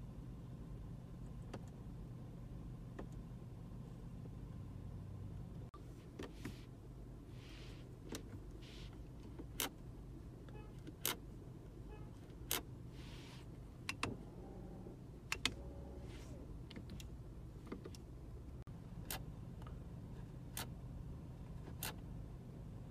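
Sharp clicks from a car's centre-console rotary drive-mode knob and buttons being turned and pressed, about one every second and a half through the second half. A steady low hum runs underneath.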